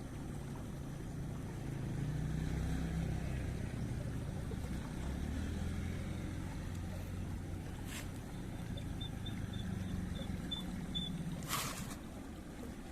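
A small engine running, a low drone whose pitch shifts up and down. A sharp click comes about eight seconds in and another near the end, with a short run of faint high ticks between them.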